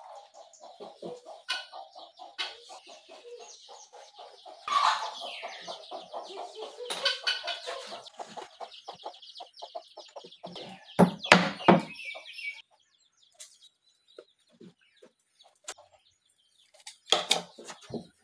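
Chickens clucking for about the first twelve seconds, then stopping. Sharp wooden knocks sound around eleven seconds in and again near the end, as a wooden board is set down on a wooden panel.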